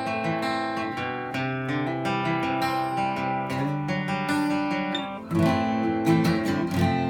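Martin J-40 jumbo steel-string acoustic guitar being played, chords picked and strummed and left to ring. The playing eases off briefly around five seconds in, then a new chord is struck.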